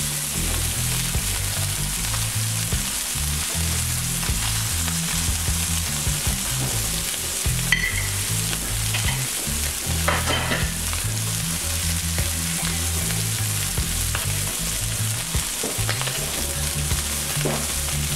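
Salmon fillets sizzling in hot oil in a wok: a steady frying hiss, with a few small clicks about halfway through.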